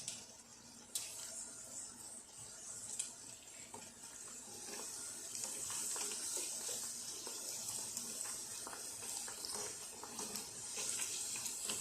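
Balls of yeast burger dough sizzling as they deep-fry in medium-hot oil: a steady high hiss with small scattered crackles, growing a little louder about halfway through.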